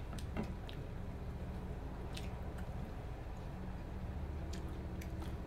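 Faint, scattered clicks and taps of bamboo snack skewers against a sauce cup and the platter, over a steady low hum.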